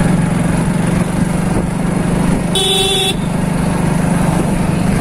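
Motorcycle engine running steadily under way, heard from on the bike. A horn sounds once, briefly, about two and a half seconds in.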